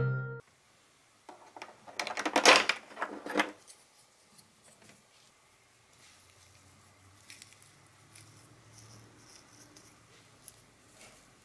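Hands handling coarse filter foam and a small plastic filter holder. A burst of rustling and crackling comes about two seconds in, then faint rubbing with a few light clicks.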